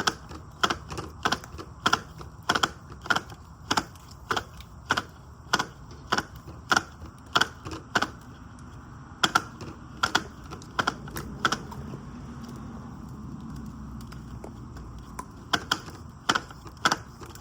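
Milwaukee string trimmer's line head clicking as it is turned by hand to wind new trimmer line onto the spool, one to two clicks a second. The clicks stop for a few seconds about twelve seconds in, then start again.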